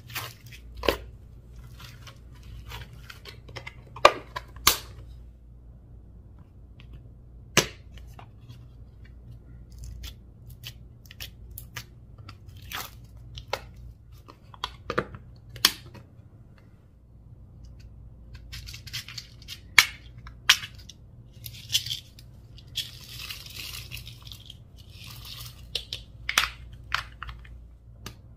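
Slime mixed with mini balls being worked by hand: scattered sticky pops, clicks and crackles, with a denser stretch of crackling late on.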